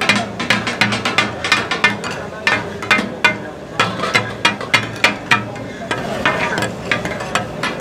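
Two steel spatula blades chopping and clattering rhythmically on a large flat iron griddle, mincing goat kidney, liver and testes: the 'taka-tak' clatter the dish is named after. The strikes come several a second and thin out near the end.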